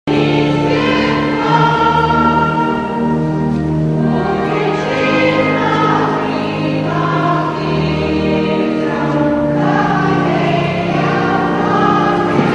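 A choir singing a hymn in slow, long held notes.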